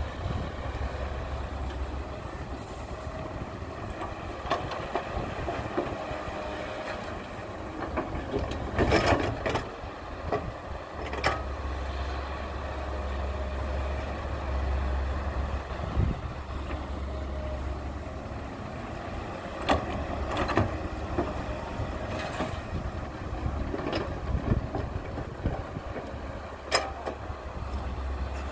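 Diesel engine of a Caterpillar hydraulic excavator running steadily as it digs and loads soil into a dump truck. Sharp knocks and clanks from the working bucket come every few seconds, the loudest a short cluster about a third of the way in.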